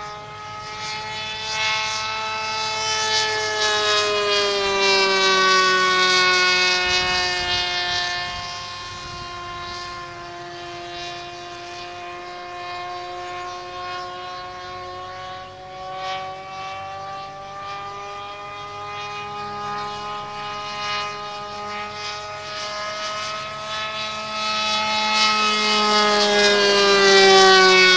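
A radio-controlled model plane's small .46-size glow engine whines at a high, steady pitch as the plane flies overhead. It gets louder and drops in pitch as the plane passes early on, then climbs in pitch and loudness again as it comes back near the end.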